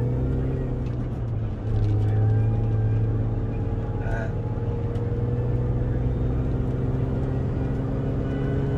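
R53 Mini Cooper S's supercharged 1.6-litre four-cylinder engine running steadily at cruising speed, heard from inside the cabin with road noise. It gets a little louder about two seconds in, and its pitch creeps slowly upward.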